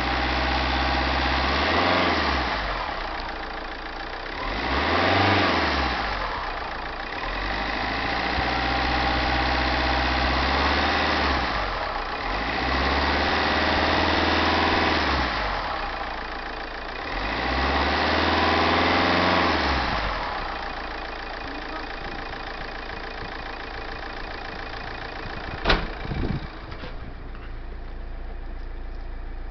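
Fiat Stilo Uproad engine revved up and let fall back four times, with a high whistle from its GT1749V variable-geometry turbocharger riding on the revs, then settling to idle; a sharp click comes a few seconds before the end. The whistle is abnormal and lasts several minutes after start-up, which the owner suspects comes from the valve controlling the variable geometry or from the turbo's variable-geometry vanes sticking.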